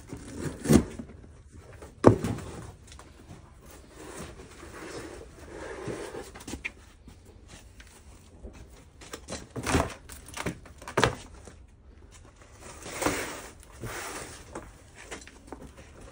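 Cardboard boxes and stored items being handled and moved: several sharp knocks and clatters, the loudest about two seconds in and again around ten to eleven seconds, with quieter rustling and shuffling between them.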